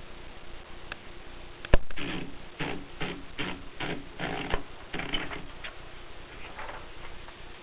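Groma typewriter being typed on: one sharp click, then a run of keystrokes at about two to three a second, fading to a few fainter strokes near the end.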